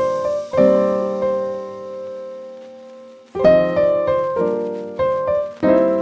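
Slow solo piano music: a few chords struck and left to ring and fade, then about halfway through a new phrase of single notes and chords about half a second apart.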